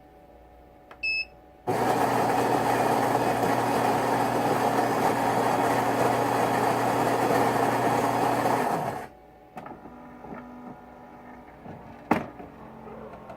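Dong Gu DSK-F04-FA espresso machine: a short electronic beep, then its pump starts abruptly and runs steadily for about seven seconds while pulling the shot, then stops. A sharp click follows near the end.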